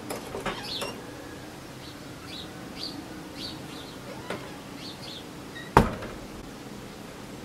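Small birds chirping in short calls repeated about twice a second, with a few light clicks near the start and one sharp knock a little before the end.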